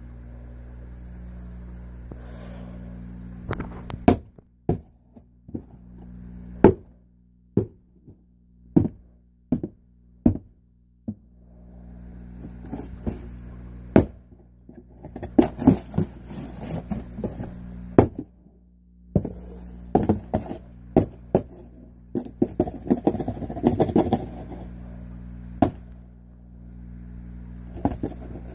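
A cardboard shipping box struck again and again with a wooden handle: a run of sharp single thuds about one a second, then stretches of scraping, rustling and quicker knocks on the cardboard. A steady low hum runs underneath.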